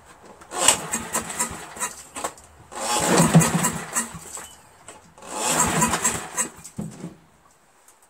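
Briggs & Stratton 11 HP single-cylinder engine being cranked over with its recoil pull starter, three pulls of about a second and a half each, without firing. There is no spark, which the owner suspects is because the replacement ignition switch is set to off.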